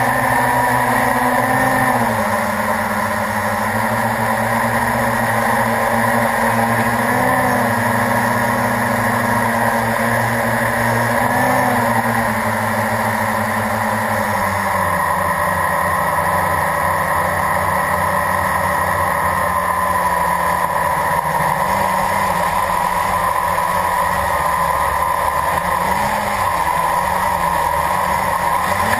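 Blade 350 QX quadcopter's brushless motors and propellers whining steadily, heard loud and close from the camera on the craft. The pitch drops about halfway through and wavers up and down near the end as the throttle changes.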